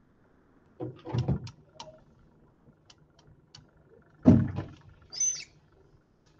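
Two short bursts of knocking and scraping, about a second in and about four seconds in, the second the louder, with a few faint ticks between them and a short high squeak soon after the second burst.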